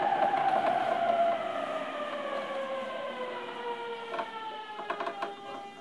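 Traction motor whine of an equipment-updated E231 series motor car, several tones gliding steadily down as the train slows on the approach to a station. Sharp clicks from the running gear come in near the end.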